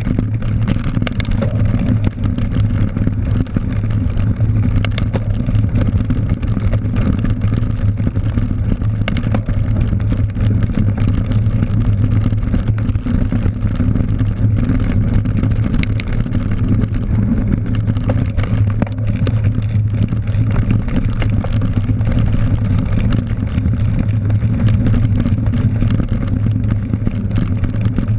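Steady low rumble of wind and rolling vibration picked up by a GoPro mounted on a cyclocross bike riding over grass and dirt, with a few sharp knocks as the bike hits bumps.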